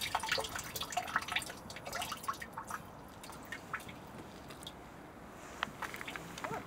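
Water dripping and splashing as a mesh net is dipped into a flooded road drain gully and lifted back out, drops falling through the iron grate. The drips come thick and fast for the first couple of seconds, then only a few more near the end.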